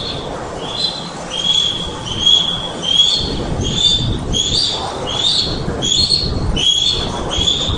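Osprey calling: a long series of short whistled notes, about one and a half a second, over crackling interference on the nest webcam's microphone.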